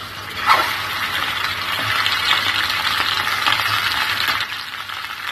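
Raw chicken drumsticks sizzling and crackling in hot oil in a stainless steel pan, the water from the meat spitting as it boils off. There is a sharper, louder spit about half a second in.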